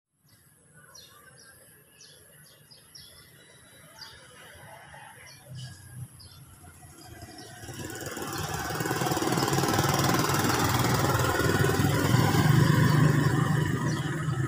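Faint bird chirps in a quiet outdoor scene. About halfway through, a motor vehicle's engine rumble swells up and stays loud.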